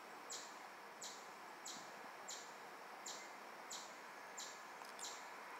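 A small animal chirping: a short, high chirp repeated steadily about every two-thirds of a second, about eight times, over a faint outdoor hiss.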